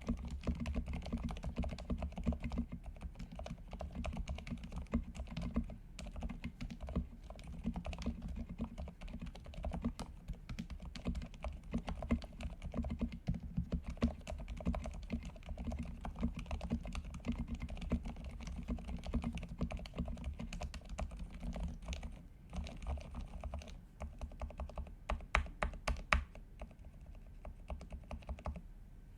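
Stock Leopold FC660M compact mechanical keyboard with Cherry MX Silent Red linear switches being typed on quickly and continuously, the dampened keystrokes running together. Near the end, typing gives way to a few separate, louder single key presses about three or four a second.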